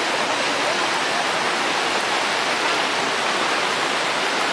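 Muddy flash-flood torrent carrying logs and debris down a slope: a steady, even rush of water.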